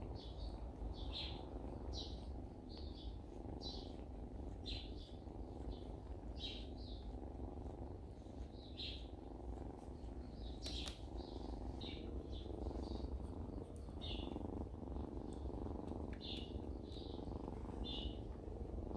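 Mother cat purring steadily, a low continuous rumble like a distant motorcycle passing. Purring of this kind is a sign of contentment. Small birds chirp over it about once a second.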